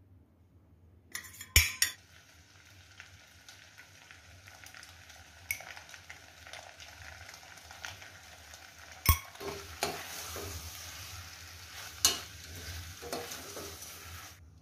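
Spiral pasta in sauce sizzling in a stainless steel pot while it is stirred with a steel spoon, a steady hiss. Sharp metal clinks of the spoon against the pot come about a second in and twice more later.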